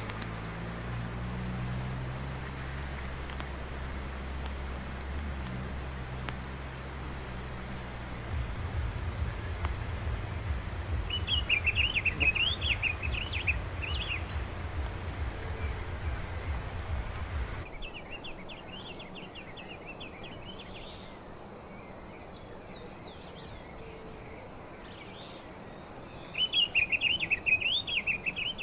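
Diademed tanager (sanhaço-frade) singing quick warbled phrases twice, about a third of the way in and again near the end. A low rumble underlies the first half and stops abruptly; after it a steady high insect buzz, like a cricket, runs behind the second song.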